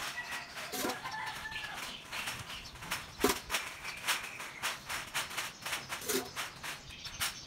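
Domestic fowl clucking a few times over a run of short, sharp scraping strokes from work on a wet concrete pond floor.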